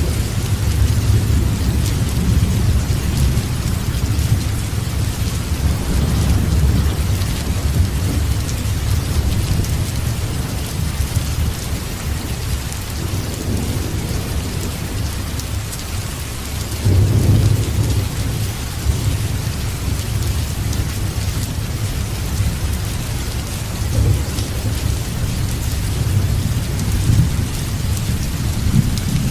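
Steady heavy rain with low rolling thunder rumbling underneath, the thunder swelling a little past halfway through.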